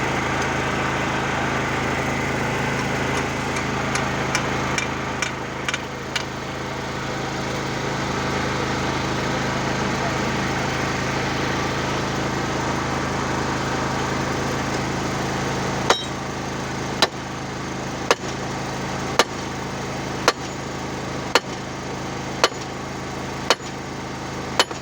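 An engine running steadily throughout, with a few light knocks about five seconds in. From about two-thirds of the way through come nine sharp, evenly spaced hammer blows, about one a second.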